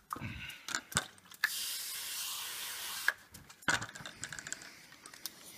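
Pump-up pressure spray bottle spraying, a steady hiss lasting about a second and a half, with a few handling clicks and knocks before and after it.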